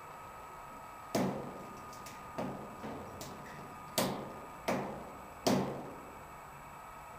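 A padlock and picking tools knocking against sheet-metal shed doors and their hasp while a weathered Master Lock wafer padlock is picked: about six sharp metallic knocks at uneven intervals, each ringing briefly.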